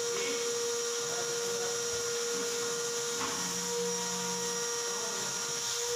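Steady whine of a running machine over a constant hiss, with a light knock about three seconds in and a short low hum just after it.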